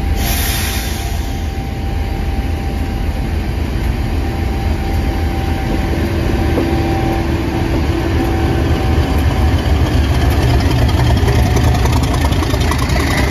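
Class 50 diesel locomotive's English Electric 16-cylinder engine working hard as it pulls away under power and passes close by: a deep engine note with a steady whine above it, growing gradually louder.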